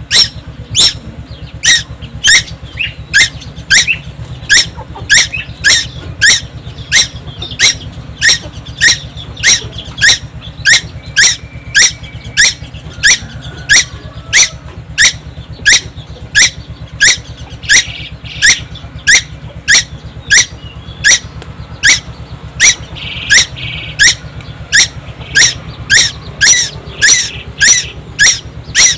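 A young tuwu bird from Timor calling over and over without a break: a sharp, high squeak that sweeps quickly down in pitch, repeated evenly about twice a second. A steady low hum runs underneath.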